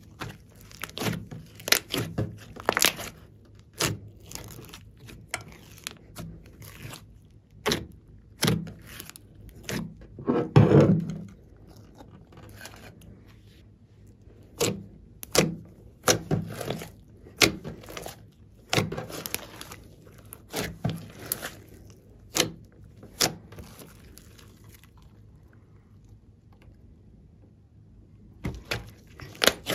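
Glossy slime mixed with clay being pressed, stretched and poked by hand: irregular sharp pops and clicks as the slime sticks, lets go and traps air, with one longer, louder squish about ten seconds in and a quieter stretch near the end.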